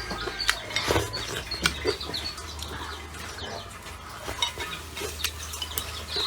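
Chopsticks and tableware clinking against a bowl while eating: scattered sharp clicks, with a steady low hum underneath.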